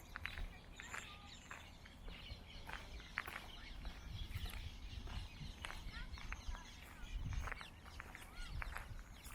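Birds chirping and calling, mostly short notes with a couple of arching whistles, over the walker's footsteps and a low steady rumble.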